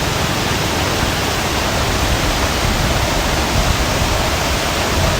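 Waterfall rushing: loud, steady roar of falling water that does not change.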